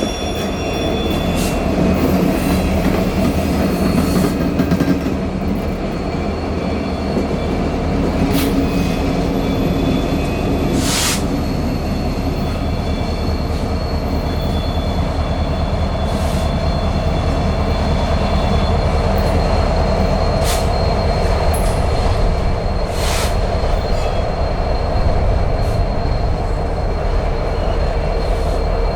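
Coal train's freight cars rolling past: a steady rumble of steel wheels on rail, with thin wheel squeals and a few sharp clanks.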